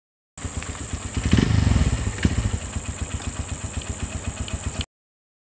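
Small motorcycle engine running with an even low putter as the bike rides up and stops. It is louder for about a second near the start, then settles to idling. There is one sharp knock a little past two seconds in, and the sound cuts off abruptly near the end.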